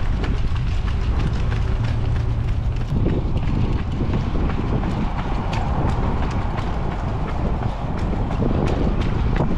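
Running footsteps on pavement, a quick, even cadence of shoe strikes, with wind rumbling on the microphone.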